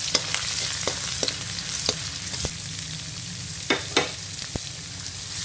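Minced garlic sizzling in hot oil in a metal pan as it fries to golden brown, with a steady hiss and the small scrapes and clicks of a stirring spoon. About four seconds in come two louder knocks of the spoon against the pan as chopped onion is tipped in.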